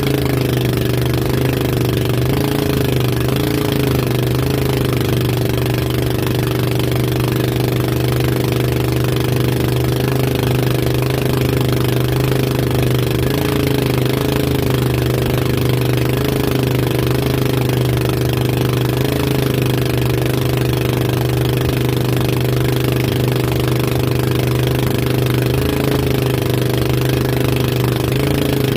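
Motorboat engine running steadily under way while towing a banana boat, its pitch wavering slightly now and then, over a hiss of wind and water.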